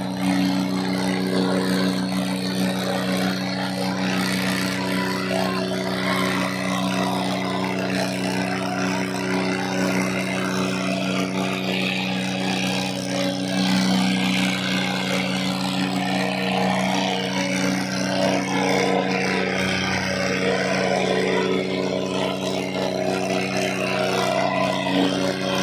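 Tractor diesel engines of a John Deere and an Eicher running hard at steady high revs, with crowd noise around them.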